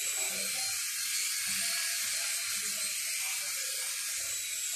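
Toy remote-control helicopter in flight, its small electric motor and spinning rotor blades making a steady, high-pitched whir.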